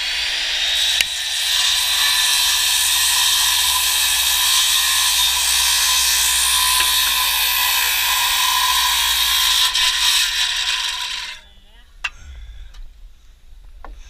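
A power tool running at speed. It spins up at the start, runs steadily, and cuts off suddenly about eleven seconds in. Two or three sharp clicks follow.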